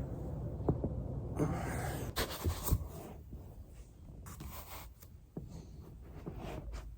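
Joints cracking: several short sharp pops in the first three seconds, among rubbing and shifting sounds, then quieter rustling.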